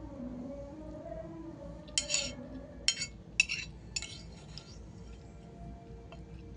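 Metal cutlery clinking against a plate about four times, between two and four seconds in, over faint background music.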